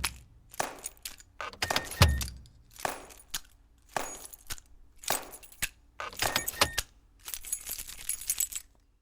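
Rhythmic metallic jangling, shaken about once a second, with a deeper thump on a couple of the beats; it stops suddenly near the end.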